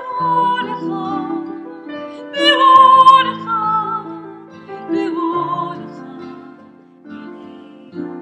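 A woman and a man singing a slow melody together, accompanied by piano and strummed acoustic guitar. The voices swell loudest about two and a half seconds in.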